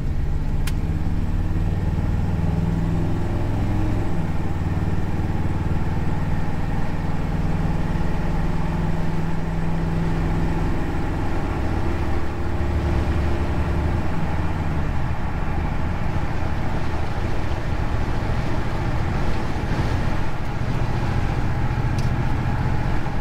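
1977 Chevy C10 pickup's engine pulling the truck up to highway speed while merging, heard from inside the cab. The engine's pitch rises over the first few seconds, holds steady, then drops between about twelve and fifteen seconds in, over steady road noise.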